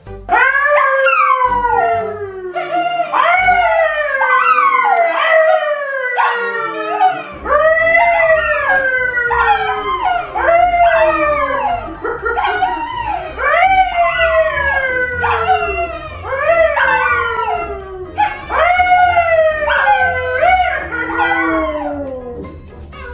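A yellow Labrador and a brown poodle howling together with a man howling along: a long run of overlapping howls, each sliding down in pitch, about one a second.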